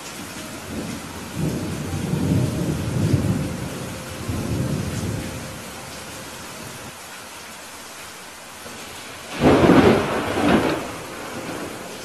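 Steady heavy rain with thunder: a low rumble rolls through the first few seconds, then a sudden loud crack of nearby thunder, breaking into a second peak, comes near the end.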